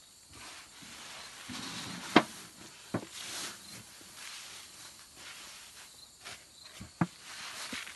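Threshed rice grain rustling as it is gathered and scooped by hand. A few sharp knocks come through: the loudest about two seconds in, a smaller one about a second later, and another near the end.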